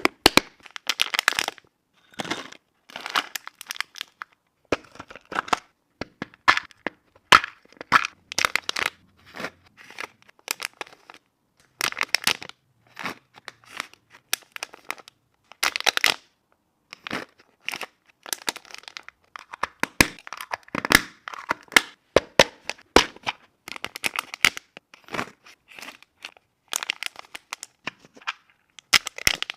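Packaging being handled: crinkling, crackling and tearing, with sharp clicks and taps, in irregular short bursts.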